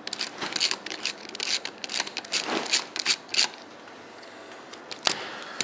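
A ratcheting screwdriver clicking and scraping as it backs out an action screw from a rifle's plastic stock. The clicks come in quick, irregular runs for the first three seconds or so, then thin out to a single sharp click near the end.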